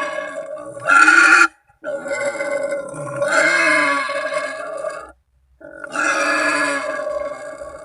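Wild boar screaming in long, drawn-out calls: one ends about a second and a half in, and two more follow after short breaks. It is the screaming call used as a hunting lure to draw other boars.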